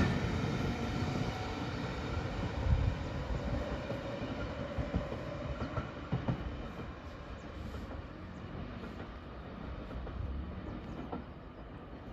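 Passenger train running away along the track, its rumble fading steadily as it recedes, with a few sharp clicks along the way.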